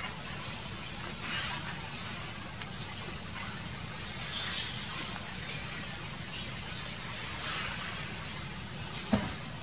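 Outdoor ambience: a steady, high-pitched insect drone over a low background rumble, with one sharp click near the end.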